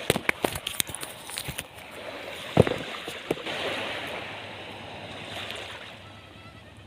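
Small waves washing in and sliding back on the shore, with a few sharp clicks and knocks in the first two seconds and one loud thump about two and a half seconds in.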